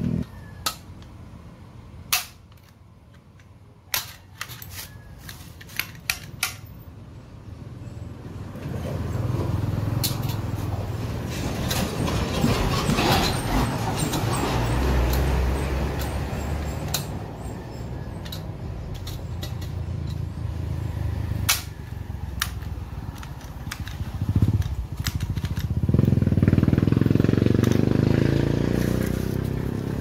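Vehicles passing on a road. One swells up and fades in the middle, and another comes by near the end with a low hum. A few sharp clicks in the first seconds.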